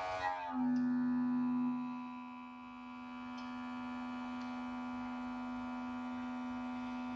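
Steady electric motor hum. About half a second in its pitch shifts and settles on one strong low tone that then holds steady.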